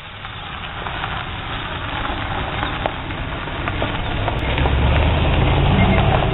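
Utility-body pickup truck driving close past on gravel: its engine hum and tyre noise grow steadily louder as it approaches, with the low engine sound strongest as it passes, about five seconds in.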